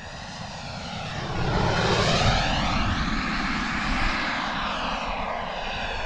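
Kingtech K45G4 model jet turbine of an E-flite Viper RC jet flying past: a jet roar that swells over the first couple of seconds and then holds, with a sweeping, phasing tone as it passes. Wind rumbles on the microphone underneath.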